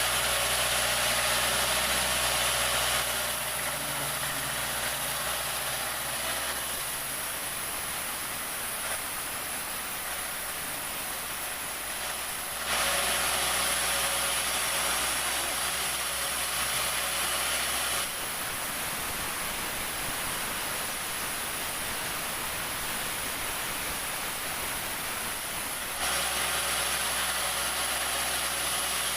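Sawmill machinery running steadily, a low engine-like hum under a constant high hiss. The level jumps up or down abruptly several times: louder for the first few seconds, again from about a third of the way in to just past halfway, and near the end.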